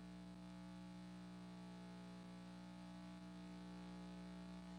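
Near silence with a steady low electrical hum and several even overtones, typical of mains hum on an old off-air videotape recording.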